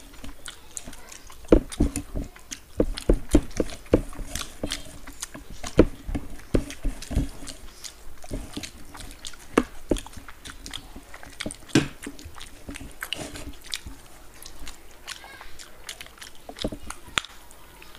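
Close-up eating sounds of two people chewing fried rice and chicken Manchurian eaten by hand: wet chewing and lip smacking with many short, irregular clicks.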